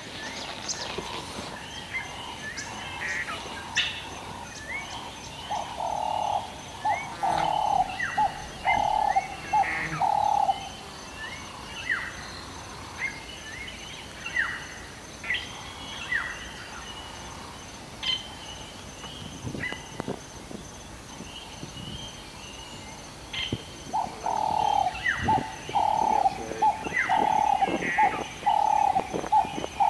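Wild birds chirping and whistling, with a dove giving a series of low, evenly spaced coos twice: once from about six to ten seconds in and again near the end.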